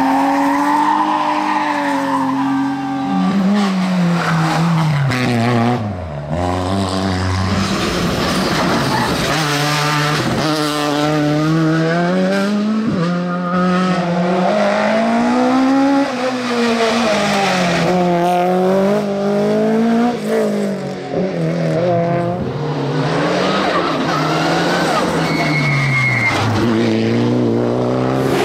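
Rally cars at full race pace, among them a BMW E30 3 Series sliding through a hairpin: engines revving hard and dropping back again and again with each gear change and corner. Tyres squeal through the bends.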